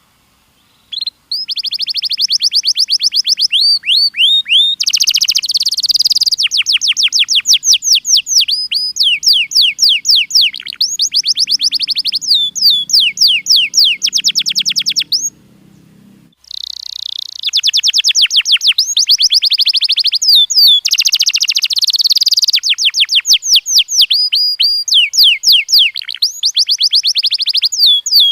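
Domestic canary singing: long runs of rapid, repeated trilled notes and rolls, with a pause of about a second about two-thirds of the way through before the song starts again.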